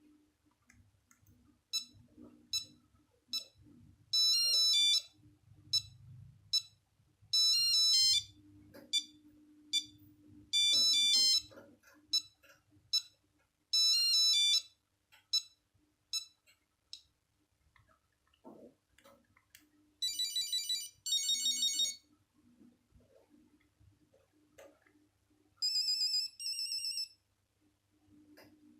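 Nokia 8210 playing its monophonic ringtones through its small speaker, one after another. First comes a melody of short beeping notes. After a pause comes a different tone about 20 seconds in, then another repeated tone near the end.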